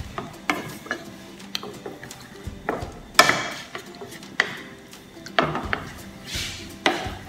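Wooden spoon stirring a creamy sour-cream sauce in a stainless steel sauté pan, knocking and scraping against the pan at an irregular pace, the loudest stroke about three seconds in.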